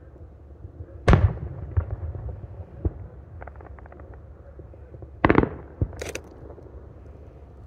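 Aerial firework shells bursting: two loud booms about four seconds apart, the first about a second in. Smaller pops and a short run of crackling come between them, and a sharp crack follows just after the second boom.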